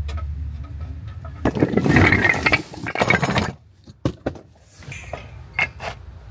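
Metal parts clinking and rattling as they are handled, with a louder scraping rush from about a second and a half in, then scattered clicks.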